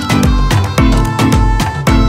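Background music with a steady beat and a strong bass.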